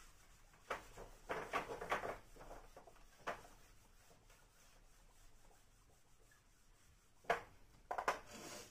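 Whiteboard eraser rubbing across a whiteboard in several short wiping strokes, with a sharp knock about seven seconds in and a few more strokes near the end.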